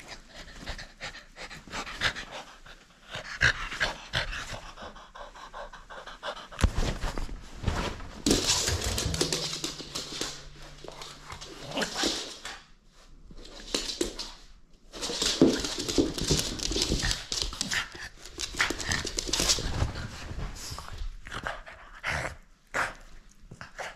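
French bulldog panting hard in irregular bursts while playing with a rubber chew toy.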